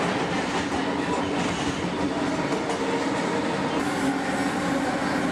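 Metro train running: a steady rumble of wheels on track with a faint, even motor hum.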